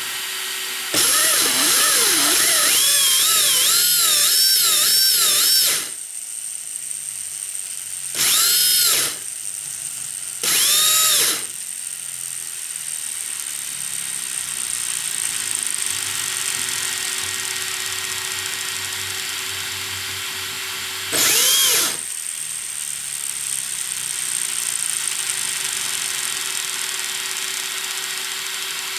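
Electric motor and full belt drivetrain of a CE-RX White Wolf RC drift car, 11-tooth pinion on a 46-tooth spur, spinning with its wheels off the ground. A loud whine wavers up and down in pitch with the throttle for about five seconds, then comes in three short bursts about 8, 10 and 21 seconds in. Between the bursts the drivetrain keeps up a steady whirring.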